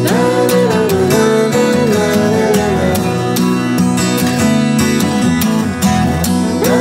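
Background music with strummed guitar and a melody that glides up and down between notes.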